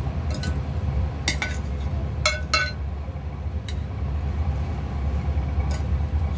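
Metal utensil clinking against a glass mixing bowl as shredded crab meat is stirred: several sharp, irregular clinks, a few of them ringing briefly, over a steady low hum.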